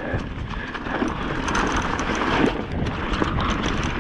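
Mountain bike rolling fast over a dry, leaf-covered dirt trail: tyre and leaf crunch with rattling of the bike, and wind rushing over the microphone.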